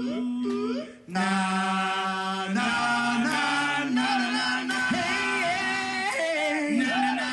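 Men singing a capella into microphones, without words: at first quick rising vocal swoops, then a brief break about a second in, then long held notes with a wavering pitch.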